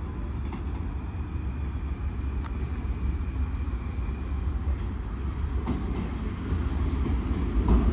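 Rusich articulated metro train running, a steady low rumble with a few light wheel clicks, growing louder near the end.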